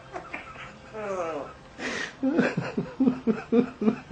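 A short falling call, then a run of rhythmic laughter in the second half, about four to five 'ha's a second.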